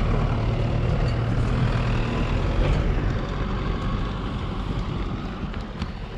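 A utility vehicle driving along a dirt track, its engine running and growing gradually fainter as it moves away.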